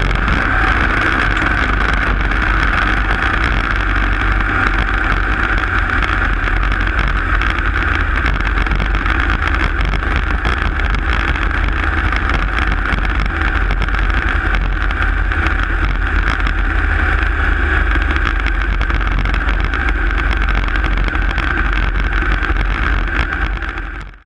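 Open-wheel dirt-track race car running flat out, its engine a loud, steady drone over a heavy low rumble, heard from inside the cockpit. The sound fades out near the end.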